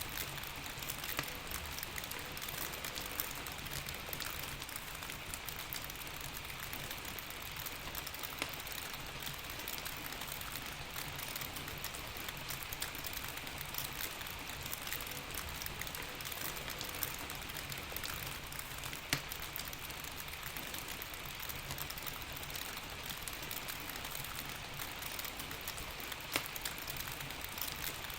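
Steady rain with a crackling fireplace; a few sharp pops stand out above the rain.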